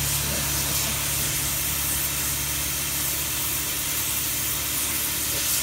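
Compressed-air siphon suction tool hissing steadily as its tip is drawn across a car door speaker grille, sucking out the degreaser and loosened dirt, over a steady low hum.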